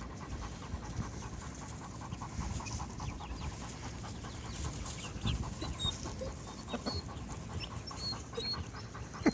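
A dog panting steadily, with a few short, faint, high chirps about eight seconds in.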